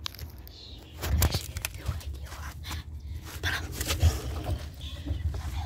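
Irregular rustling and knocking of a phone being handled and moved close to its microphone, over a steady low rumble, with the loudest knocks about a second in and about four seconds in.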